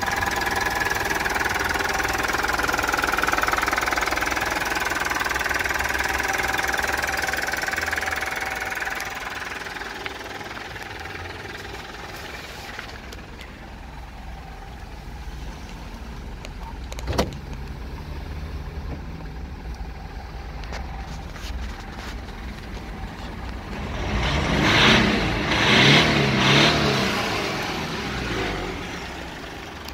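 Mitsubishi L200's 2.5-litre four-cylinder turbodiesel idling, heard from inside the cab with the doors open. It is louder for the first several seconds. There is a single sharp click about halfway through, and a few louder bursts of noise near the end.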